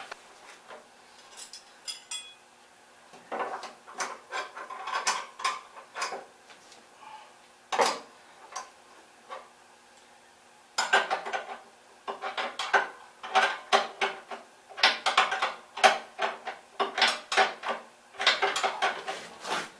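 Steel wrench clicking and clinking against a nut and bolt while the last bolt is tightened: bursts of quick metallic clicks with short pauses between them.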